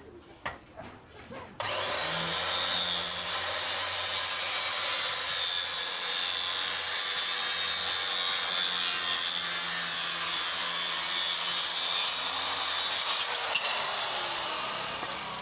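Circular saw cutting through timber. It starts abruptly about a second and a half in, runs steadily, then dies away near the end.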